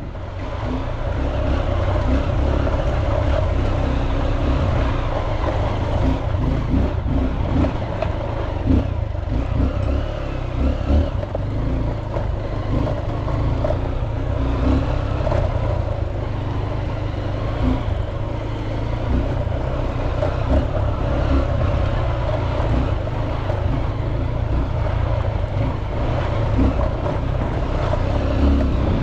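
Off-road motorcycle engine running under way, its low note wavering slightly with the throttle, with a few brief knocks over the ride.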